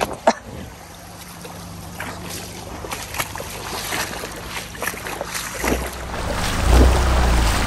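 River water sloshing and splashing as a person wades in to check whether the stream is shallow enough for the jeep to cross. A low steady engine hum runs underneath. Wind buffets the microphone near the end.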